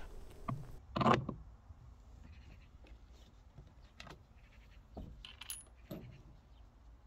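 Scattered clinks and knocks of hand assembly on a mower bar: small metal parts and a plastic guard being handled and fitted, the loudest knock about a second in.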